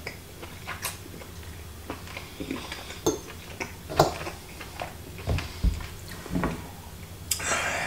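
Knife and fork clinking and scraping against a dinner plate while cutting food, with a few sharp clicks, the loudest about four seconds in, and some soft low thumps.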